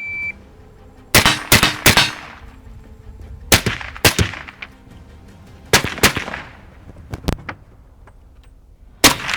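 A shot timer gives one short beep, then a string of gunshots with echoing tails: three quick shots about a second in, then pairs of shots every two seconds or so, with a few smaller cracks between them.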